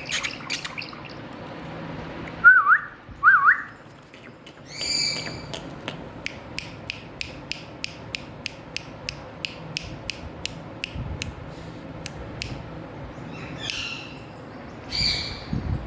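Indian ringneck parrot giving two loud whistled notes that swoop up and down, then a harsh call. A long run of sharp, evenly spaced clicks follows at about three a second, and two more harsh calls come near the end.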